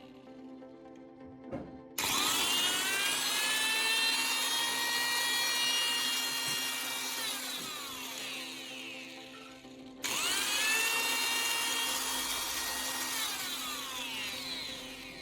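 Angle grinder's brushed motor running with no load on freshly fitted homemade carbon brushes: switched on about two seconds in, its whine climbs quickly to full speed and holds, then it is switched off and winds down. It is started again about ten seconds in and winds down once more near the end, showing the motor runs again after the brush repair.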